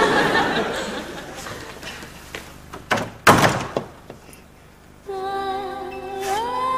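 A wooden front door slammed shut: one loud thud about three seconds in, with a second, weaker knock just after. A short music cue of held tones begins about five seconds in.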